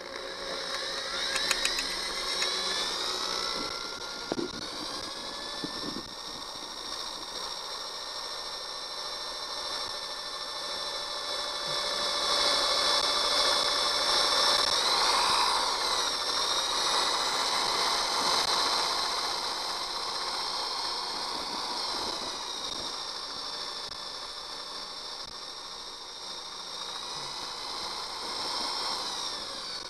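Electric drill running under load, its motor whining steadily with the pitch wavering as the bit drills into a rusted, seized screw stud in an outboard motor.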